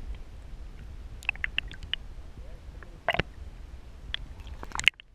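Muffled underwater sound picked up by a submerged camera: a steady low rumble of water with scattered sharp clicks and ticks, a louder knock about three seconds in, and a sudden drop in level near the end.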